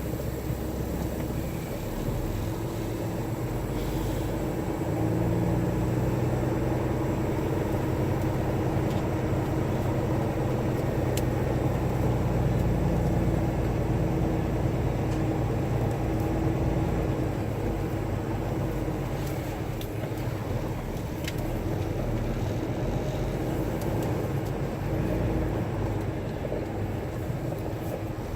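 Semi truck's diesel engine running as the tractor-trailer pulls slowly forward onto a truck scale; the steady drone grows louder about five seconds in and then holds.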